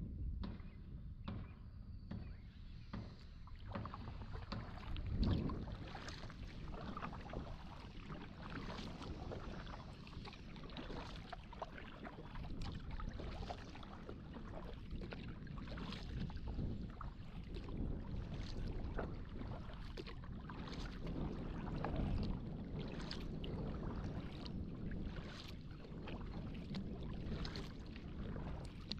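Kayak paddle strokes dipping and splashing in the water, repeating steadily over a continuous low rumble.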